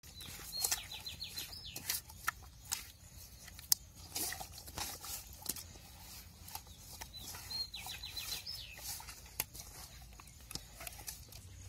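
Hands handling whole raw fish in a metal basin: scattered clicks, taps and knocks. A bird twice sings a short phrase of quick notes falling in pitch, once about half a second in and again about seven seconds in.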